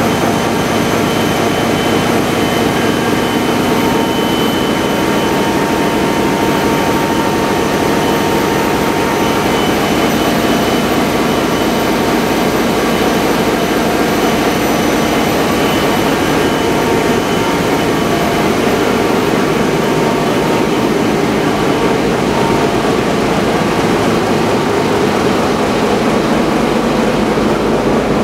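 Great Lakes freighter's main diesel engine running in the engine room: a loud, steady, dense machinery din with a fast low throb and thin, steady whines above it.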